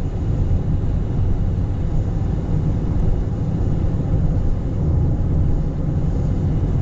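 Steady road rumble heard inside a moving car: tyres on a wet road and engine noise, with an even hiss over it.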